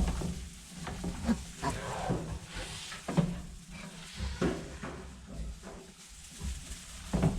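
Potbelly pigs, a sow and her newborn piglets, grunting in short, scattered, irregular grunts.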